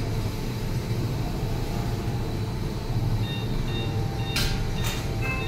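Steady low hum with a noisy background, broken by two brief sharp clicks about a second before the end. Faint high tones at changing pitches come in over the last two seconds.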